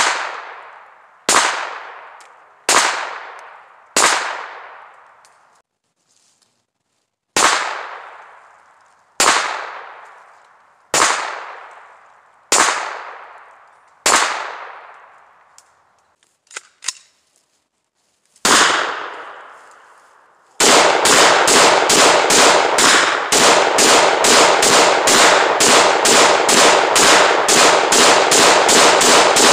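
Gunshots at an outdoor range. Ten single shots come at an uneven, unhurried pace, each with a long echoing tail. Then, about twenty seconds in, a rapid string of about three shots a second runs on for the last nine seconds.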